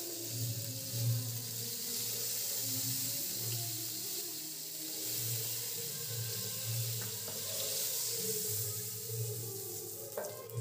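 Hot oil sizzling steadily as whole spice seeds are dropped into the pan for tempering, an even hiss. Faint background music underneath.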